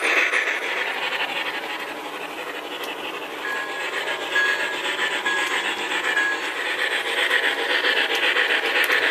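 HO scale MTH model trains running on a layout's track, a steady rolling rattle of wheels on rail. A few short high beeps repeat in the middle.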